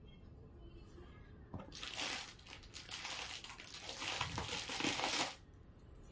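Plastic packaging crinkling as it is handled, a dense crackle that starts about two seconds in and stops abruptly after about three and a half seconds.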